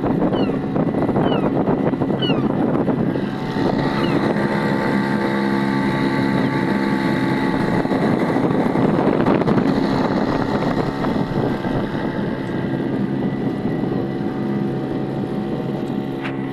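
Small Hidea 3 hp outboard motor fitted with a hydrofoil, running steadily as it drives a small boat along.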